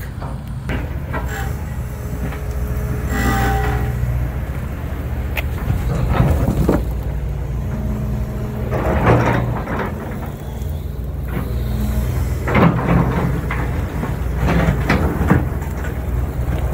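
Large hydraulic excavator's diesel engine running steadily while its bucket scrapes and shoves broken asphalt and concrete slabs, the chunks knocking and clattering against each other and the bucket several times.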